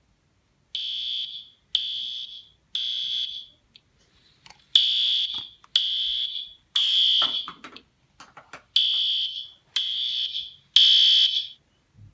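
Fire alarm sounding: nine high-pitched blasts in three groups of three, starting about a second in, the temporal-three evacuation pattern.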